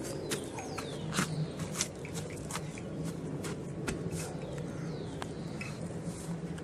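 Small birds chirping: many short, sharp chirps and a few downward-sliding whistles, over a steady low hum.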